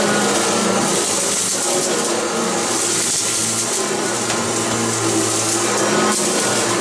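Hoover ONEPWR cordless bagged upright vacuum running steadily over carpet, giving a constant motor hum and air hiss.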